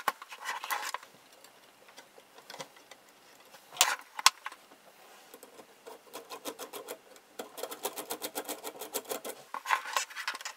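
Screwdriver work and handling on a metal radio chassis: scattered clicks and scrapes, a sharp knock about four seconds in, then a long run of quick ticks as a mounting screw of the old electrolytic capacitor is turned out.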